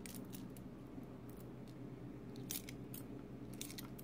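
Faint, scattered clicks of silver dimes touching one another as they are handled and picked through, a few light ticks at a time over a low steady hum.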